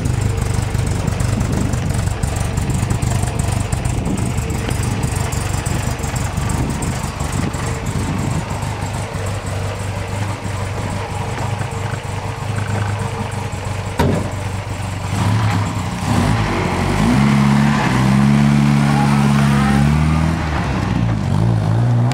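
1960 MGA's 1800 cc four-cylinder engine idling steadily, with a single sharp click partway through. Then the engine speed rises and holds at higher pitches in a couple of steps near the end.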